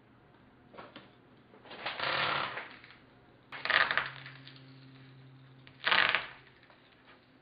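Masking tape being pulled off its roll: a brief peel about a second in, then three longer tearing peels about two seconds apart, the last two starting abruptly.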